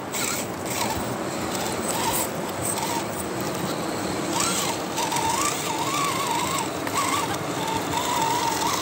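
Small RC rock crawler's electric motor whining, its pitch rising and falling as the throttle changes, with the tyres crunching and scraping over ice and stones.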